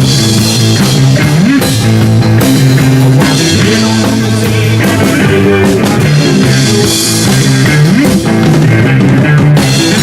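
Rock band playing live, an instrumental stretch with electric guitar, bass and a drum kit keeping a steady beat.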